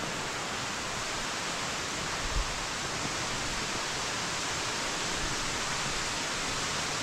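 Steady rushing of a mountain stream, an even hiss with no break, and a soft low thump about two and a half seconds in.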